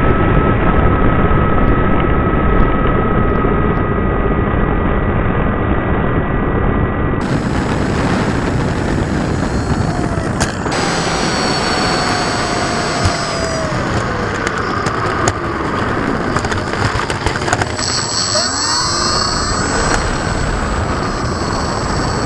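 Electric motor of an FMS Stuka RC model plane whining over heavy rumble from wind and vibration on the onboard camera. The whine falls slowly in pitch as the throttle comes down midway, and rises again near the end.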